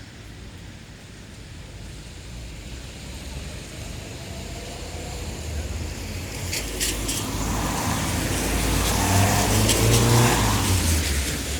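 A car on a wet road approaches and passes, its engine rumble and the hiss of tyres on wet asphalt building steadily to a peak about ten seconds in, then falling away. A few sharp clicks come through near the loudest part.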